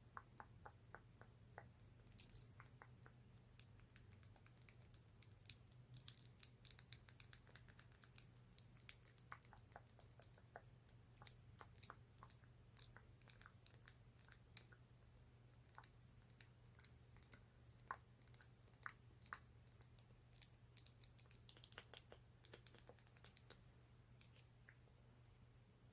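Fingernails tapping and clicking on a lip gloss tube and its cap: many quick, irregular clicks, some in fast runs, over a faint steady low hum.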